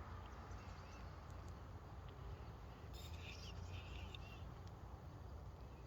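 A small bird gives a quick run of high chirps about three seconds in, with a few fainter chirps earlier, over a low steady rumble.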